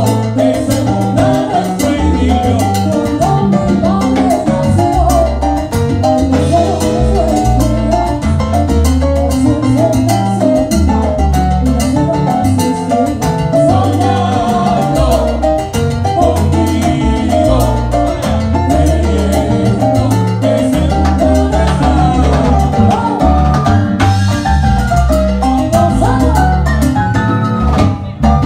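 Salsa band playing live: a steady bass and percussion groove under busy melodic lines.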